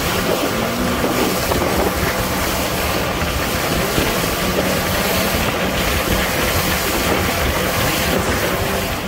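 Small fishing boat running at speed across open water: a loud, steady rush of motor, wind and water against the hull, with a faint low engine hum under it.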